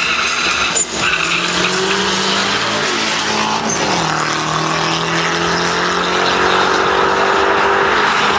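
Two drag-racing cars, a Mercedes CLS AMG and a small red hatchback, accelerating hard down a quarter-mile strip. Their engines run at high revs over a steady rush of noise, and the engine note drops at gear changes about three and four seconds in.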